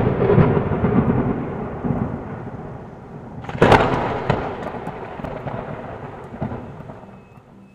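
Thunder sound effect: a loud rumble of thunder that fades away, then a sharp thunderclap about three and a half seconds in that rolls off slowly.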